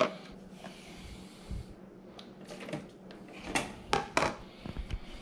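Plastic tub set down on a tile floor with a sharp tap, followed by scattered clicks and handling knocks, with a few louder knocks about three and a half to four and a half seconds in.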